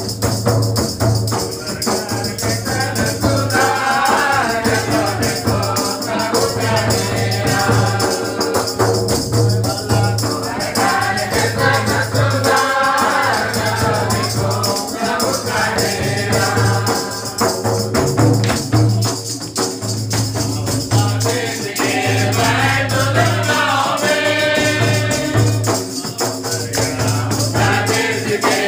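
A mixed group singing a Christmas carol together, accompanied by a shoulder-slung barrel drum played by hand and hand clapping in a steady beat.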